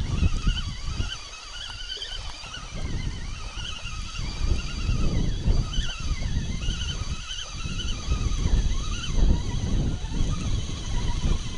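Wind buffeting the microphone in irregular low gusts, with a thin, wavering high-pitched call warbling on and off above it.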